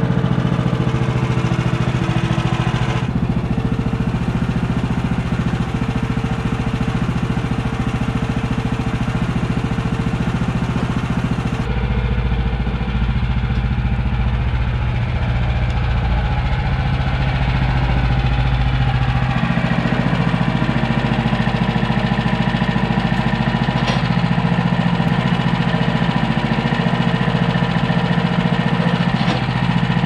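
Woodland Mills HM130max portable band sawmill running steadily, its engine holding speed while the band blade saws along a log. The sound shifts in balance a few times as the listening spot around the mill changes.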